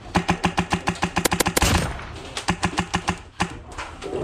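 HPA-powered Wolverine MTW airsoft rifle firing two strings of rapid shots, about eight a second, each shot a sharp snap with a low thump, with a short break between the strings.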